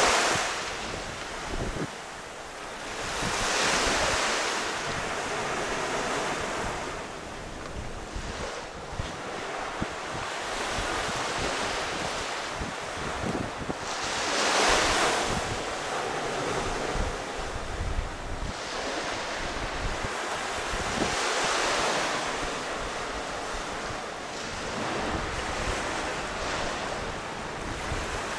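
Small waves washing onto a beach, each wash swelling and fading about every five to seven seconds, with wind buffeting the microphone.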